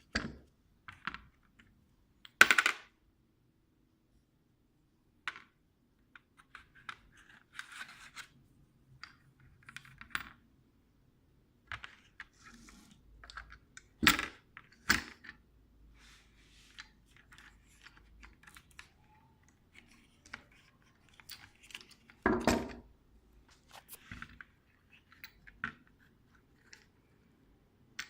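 Hand work on a woodworking bar clamp's parts: scattered small clicks, scrapes and rattles, with a few louder sharp knocks, one a few seconds in, two close together about halfway, and one more later.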